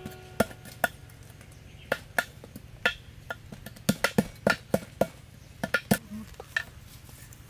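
Knife chopping on a wooden cutting board: sharp, irregular knocks, some coming in quick clusters.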